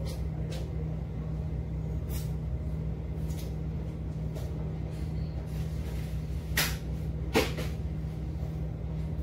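Ship's engines on a car ferry running with a steady low hum. Two short sharp knocks come past the middle, under a second apart.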